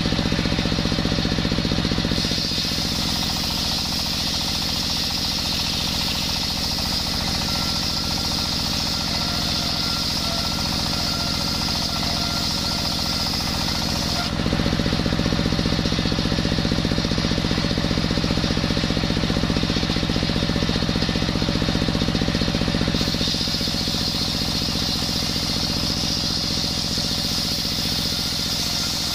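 A table circular saw blade, belt-driven by a stationary single-cylinder diesel engine, ripping coconut wood. The engine chugs steadily throughout while the blade screams with a high whine during the cuts, from about 2 s in to about 14 s and again from about 23 s.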